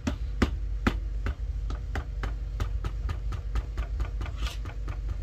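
Fingers tapping the rubber pads of an Akai MPC 2000 XL sampler: a quick, uneven run of sharp taps, about four a second, testing the newly installed pad sensor. A steady low hum runs underneath.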